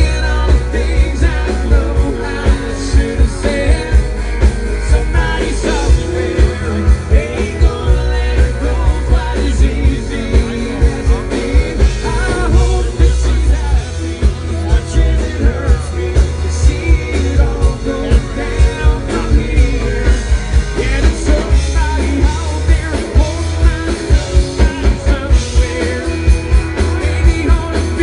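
Rock band playing live: electric guitars and drums with a steady beat, and a singer.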